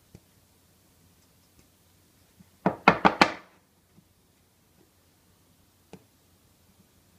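Metal espresso portafilter filled with ground coffee knocked against a wooden cutting board, four sharp knocks in quick succession to settle the grounds before tamping, then one lighter knock as it is set down.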